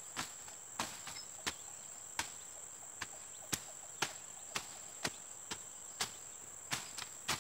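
A hand blade chopping through undergrowth in a steady run of sharp strikes, about two a second, over a steady high-pitched insect drone.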